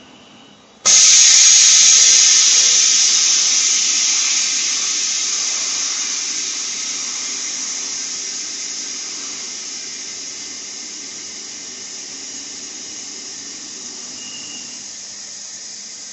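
LCD bubble-remover autoclave venting its compressed air: a loud hiss starts abruptly about a second in and slowly dies away as the chamber pressure drops back toward zero.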